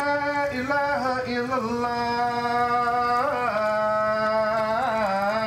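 Solo male voice in an Islamic chant, holding long notes joined by short ornamental turns, stepping down in pitch about halfway through.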